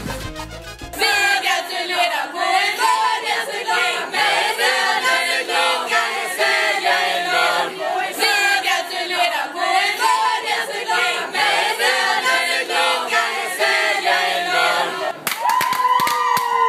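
A group of girls singing together without instruments, the same phrase coming round again and again like a chant, ending near the end with one long held shout.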